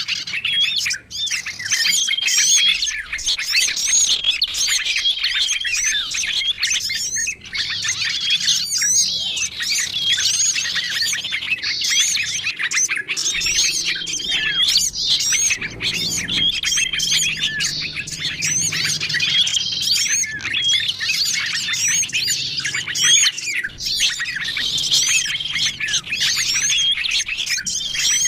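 A dense mix of small songbirds chirping, warbling and calling over one another, made as a lure recording to draw small wild birds in. One short whistled note keeps coming back every few seconds, as in a looped track.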